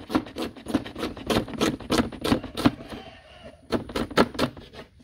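Chef's knife chopping red onion on a wooden cutting board: quick, sharp chops of the blade through the onion onto the board, about three or four a second, with a short pause about three seconds in.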